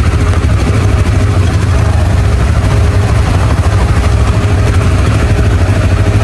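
ATV engine running during a ride, with a heavy, fluttering wind rumble on the phone microphone.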